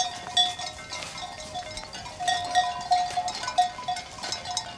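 Bells on a grazing flock of sheep clinking and ringing irregularly, several bells overlapping.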